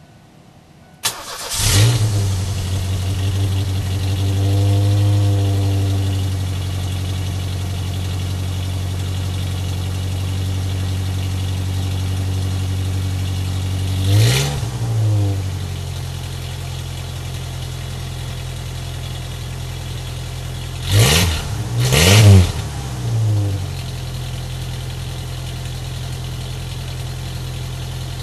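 1990 Ford Mustang's 2.3 L EFI four-cylinder on its stock camshaft, heard at the tailpipe. It starts about a second in and runs at a raised idle for a few seconds before settling to a steady idle. It is blipped quickly about halfway and a few more times near the end.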